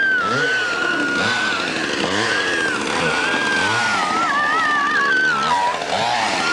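Chainsaw engine revving up and down over and over, with a high wavering whine over it.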